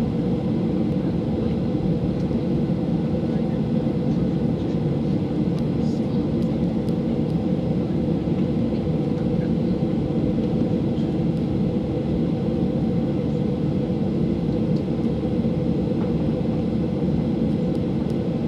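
Cabin noise inside a Ryanair Boeing 737-800 on its takeoff run: the CFM56 jet engines at takeoff thrust and the runway rumble make a steady, deep roar, with a few faint rattles.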